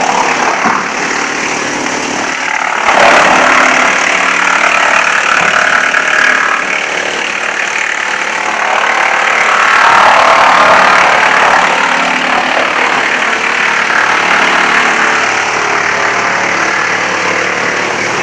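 Wood chipper running loudly, a dense mechanical din over a steady engine-like hum, swelling louder about three seconds in and again around ten seconds.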